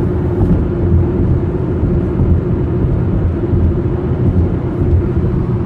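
Crop-duster airplane's engine droning steadily: one steady hum over a heavy, unsteady low rumble.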